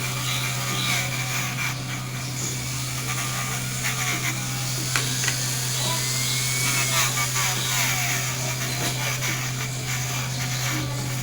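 A steady low hum, with a few light clicks and scrapes of small metal carburetor parts being handled.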